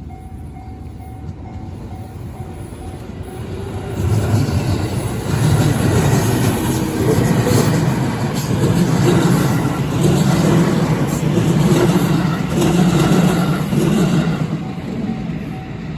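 A train passes over a Japanese railway level crossing. It grows loud about four seconds in, with wheels clattering rhythmically on the rails for about ten seconds, then fades. The crossing's warning bell rings in quick repeated tones at the start and can be heard faintly again near the end.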